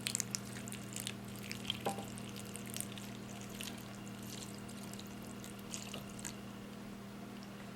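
Liquid splashing and dripping in short scattered bursts, mostly in the first few seconds and again briefly around six seconds in, as vinegar is poured over humidifier filters to soak them. A steady low hum runs underneath.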